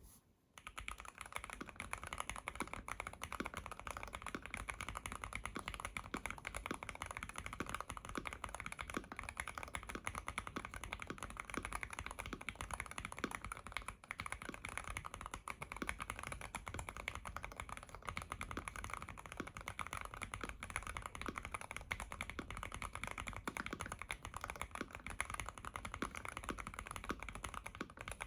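Continuous typing on a Keychron Q1 mechanical keyboard with factory-lubed Aquaking 67g linear switches, a brass plate and EnjoyPBT keycaps, dampened with tape, silicone and foam mods. The key strokes come rapidly and steadily, starting about half a second in.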